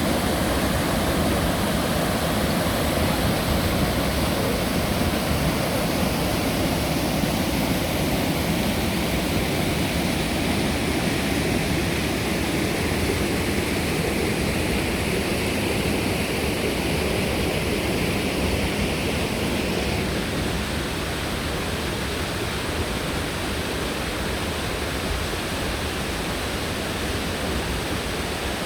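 Steady rush of running water, an even noise without breaks, a little quieter in the last third.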